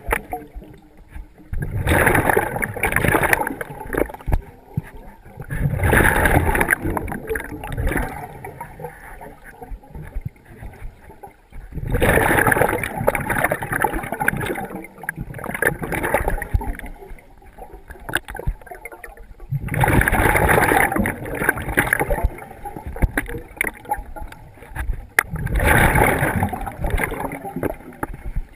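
Scuba diver breathing through a regulator underwater: exhaled bubbles gush out past the helmet camera in bursts about every five to six seconds, with quieter breathing between.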